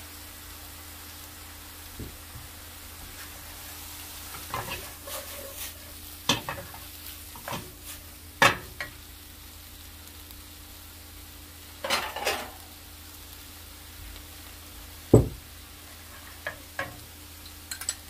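Bamboo shoots, seafood and vegetables sizzling gently in an oiled frying pan, with a dozen or so separate knocks and clatters of utensils and dishes; the loudest is a single low thump about fifteen seconds in.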